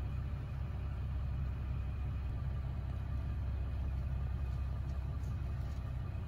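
An engine idling steadily with a low, even hum, no revving.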